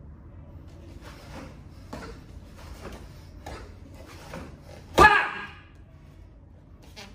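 Taekwondo uniform snapping with each technique, a run of faint cracks, then one loud, short kihap shout about five seconds in.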